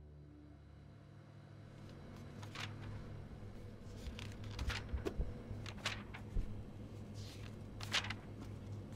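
A low steady hum, with a scattered series of sharp clicks and knocks from about two seconds in; the loudest come about five and eight seconds in.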